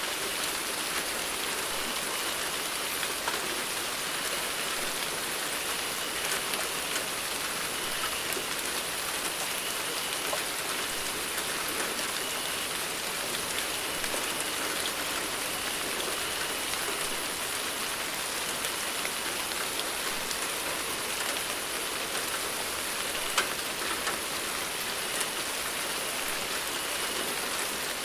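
Steady rain falling, an even hiss with scattered individual drops striking a surface, and no thunder.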